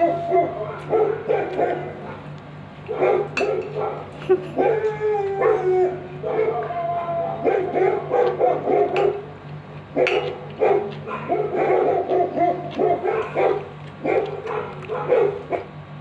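Shih Tzu barking and yipping in repeated quick runs, with a longer call that bends up and down in pitch about five seconds in.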